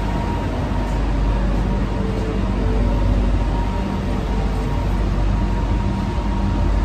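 Urban rail train running: a loud, steady low rumble with a thin constant whine over it.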